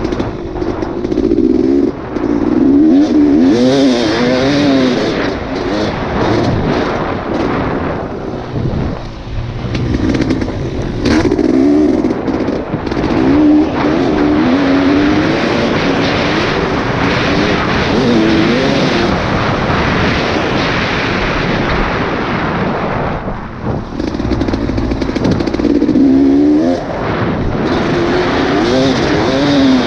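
Off-road vehicle engine revving up and down over and over as it is ridden, its pitch rising and falling, with heavy wind noise buffeting the microphone.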